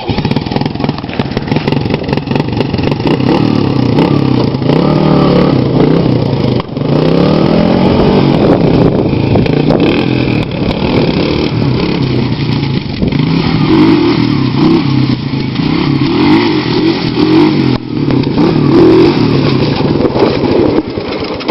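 A four-wheeler's engine running and revving up and down, as for wheelies.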